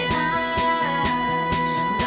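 Background pop dance music: a steady beat of about four beats a second under held chords.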